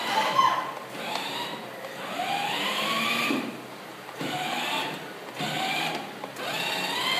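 Electric drive motors and gearbox of a ride-on toy car whining in short runs of about a second, the pitch rising as the car speeds up, then dropping away as it stops and starts again.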